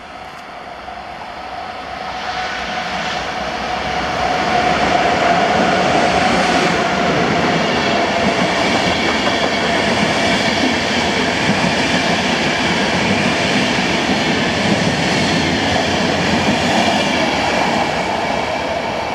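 PKP Intercity express passenger train, an EU44 Husarz electric locomotive hauling its coaches, passing through the station at speed without stopping. The sound builds over the first few seconds as it approaches, with a steady whine a few seconds in, then the coaches' wheels rumble and clatter past. It eases slightly near the end as the last coach recedes.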